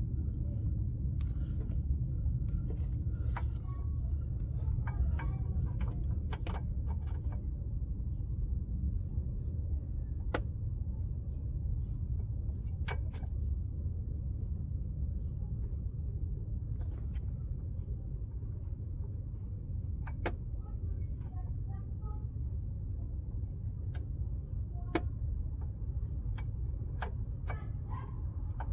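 Steady low workshop hum with scattered light metallic clicks and taps as engine parts and tools are handled during timing-chain work.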